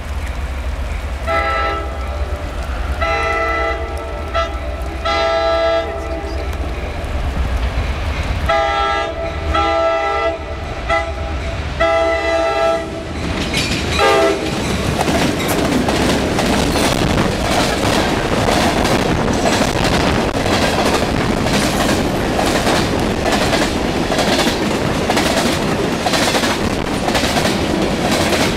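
A freight train's diesel locomotive sounding its multi-tone air horn in a series of separate blasts, three and then about five, as it approaches; then the train passes close by, a loud steady rumble with the rhythmic clickety-clack of wheels over rail joints.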